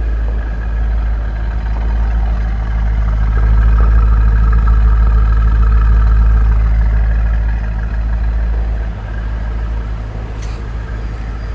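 Chevrolet C5 Corvette's V8 engine idling with a steady deep rumble, growing louder for a few seconds in the middle.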